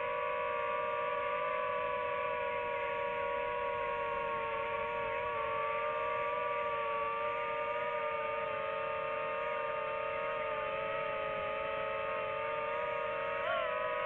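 Multi-rotor drone's motors and propellers whining steadily, the pitch drifting slightly as the throttle changes, with a quick upward blip near the end.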